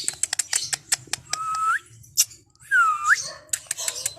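Ringneck parakeet chattering with rapid sharp clicks and harsh noises, plus two short whistled notes that dip and then rise.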